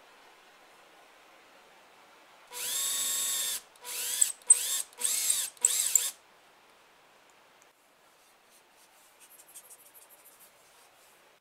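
Electric drill boring a counterbore into plywood through a depth-stop jig: one steady run of about a second, then four short bursts with a whining motor tone as the hole is cut down to the jig's stop depth.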